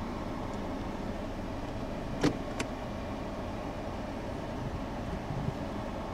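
Steady cabin hum of a running 2018 Nissan Kicks, heard from inside the car, with two short clicks a little over two seconds in, about a third of a second apart.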